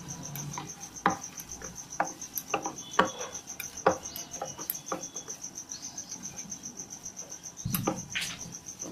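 Hands kneading and mashing boiled sweet potato in a steel bowl: soft squishing with scattered clicks and knocks of fingers against the metal bowl, a louder scrape near the end. A steady, evenly pulsed high chirping runs in the background.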